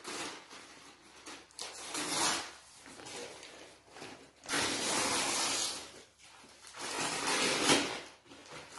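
Gift-wrap paper rustling and crinkling as a present is unwrapped by hand, in several rough spells of about a second each.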